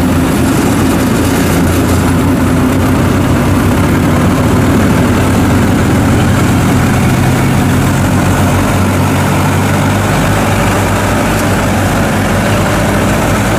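Engine of a small tracked rice harvester running steadily as the machine crawls along, its pitch shifting slightly about two-thirds of the way through.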